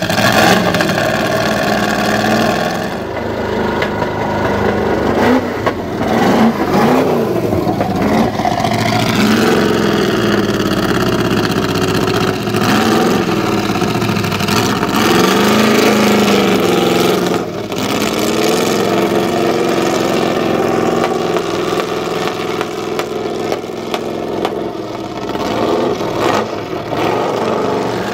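Ford GT40 Mk II's 7-litre V8 running through its short upright exhaust pipes, idling between repeated throttle blips. Each rev rises and falls back to idle every few seconds.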